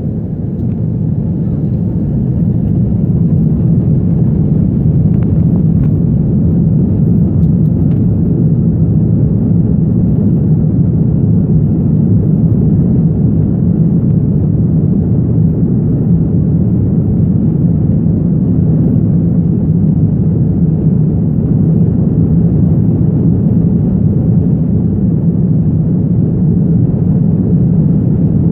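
Jet airliner heard from inside the cabin during take-off: a loud, low engine and cabin rumble that builds over the first few seconds and then holds steady.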